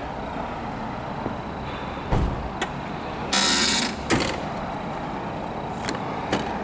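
A few sharp clicks and knocks with a brief loud rustling hiss in the middle, over a steady low background rumble: handling noises in a parked car.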